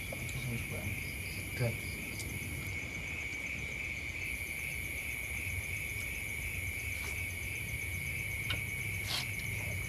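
Night insects trilling steadily, one high continuous trill with a faint pulsing chirp over it. A short voice sounds about a second and a half in, and there is a sharp click near the end.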